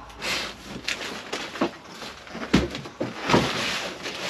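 Cardboard shipping box being cut open and handled: scraping and rustling of cardboard, with two sharper knocks in the second half.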